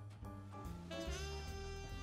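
Jazz instrumental music: a pitched melody line that slides upward about a second in, over changing low bass notes.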